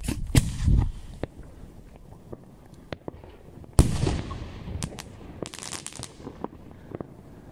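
An aerial firework rises and bursts with one loud bang about four seconds in, trailing off in a short rumble. About a second and a half later comes a quick flurry of crackles.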